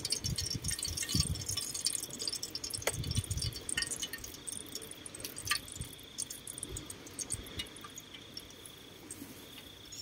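Eggs frying in a small pot on a portable gas-canister camp stove: a patter of sizzling crackle, with a few sharp clicks as shells are cracked over the pot. A steady high insect trill comes and goes.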